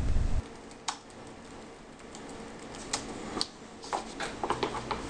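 A low hum cuts off a moment in, then laptop keyboard typing: scattered single key clicks that thicken into a quick run of keystrokes near the end.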